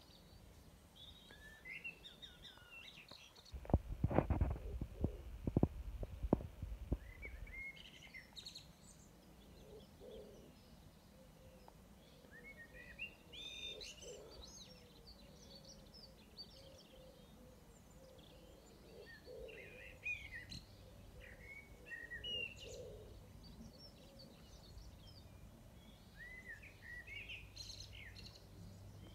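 Several birds singing and chirping, with a burst of low rumbling thumps about four seconds in.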